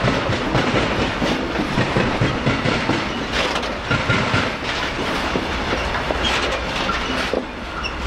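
Open high-sided freight wagons rolling past close by, their wheels clattering over the rail joints with a steady rumble. The sound eases near the end as the last wagon goes by.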